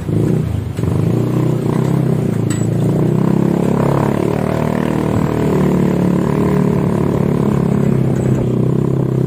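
Motorcycle engine running steadily under way at low revs.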